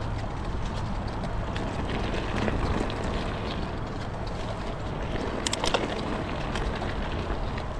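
INTENSE Sniper T mountain bike being ridden: a steady rumble of rolling tyres and air, with a few sharp clicks and rattles from the bike about five and a half seconds in.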